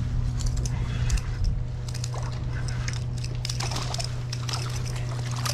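Spinning reel being cranked while a hooked fish splashes and thrashes at the surface beside the kayak, the splashing heaviest in the second half. A steady low hum runs underneath.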